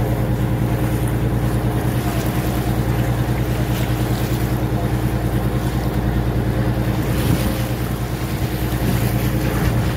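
A tour boat's engine running steadily with a low hum, heard from on board, with wind and water noise over it.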